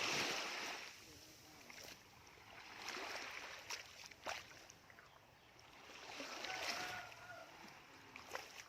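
Shallow waves washing up over the sand of a beach, coming in three surges a few seconds apart, with a few short sharp splashes between them.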